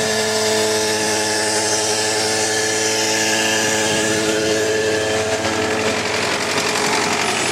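Belarus 820 tractor's four-cylinder diesel engine running steadily at a constant speed.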